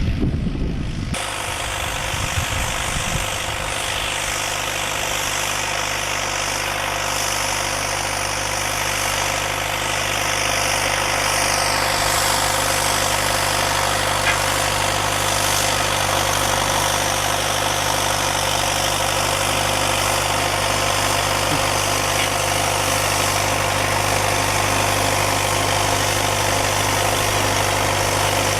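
Farm tractor engine running at a steady speed, a low even hum with a higher whine above it.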